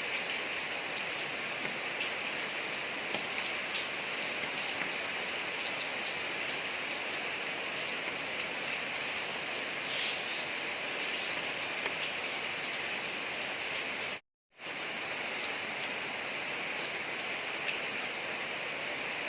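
Steady rain falling on a street, an even hiss with scattered individual drop ticks. The sound cuts out completely for about half a second roughly three-quarters of the way through, then resumes unchanged.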